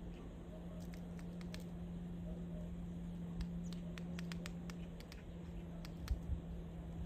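Small birds pecking at food: scattered light taps and clicks at an uneven pace, over a steady low hum.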